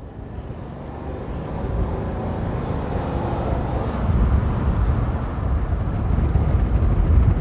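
Road noise of a vehicle driving: a low, noisy rumble without a clear engine note that fades in and grows louder.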